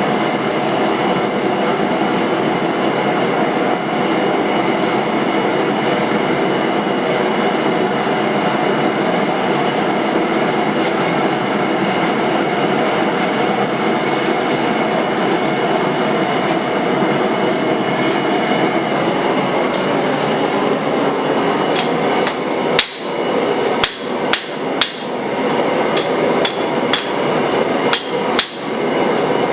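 A forge runs with a steady, loud rushing roar. About 23 seconds in, a hammer starts striking hot steel on an anvil to shape a broadhead, roughly two blows a second, with the forge still roaring beneath.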